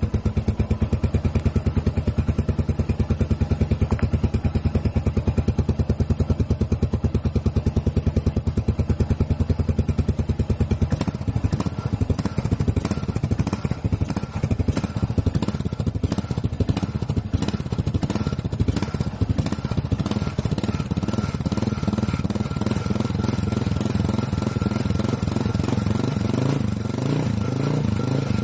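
Motorcycle engine running with a steady, even beat. From about eleven seconds in, the beat turns uneven and the pitch rises and falls.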